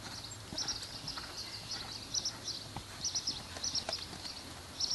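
Horse trotting on sand arena footing: soft, irregular hoofbeats with faint, high, jingling ticks in quick clusters.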